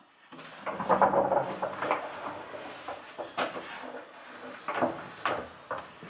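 Handling noise from the 12 V compressor fridge and its cooling unit being moved and touched: irregular knocks and clatter over a light rustle, with the sharpest knocks in the second half.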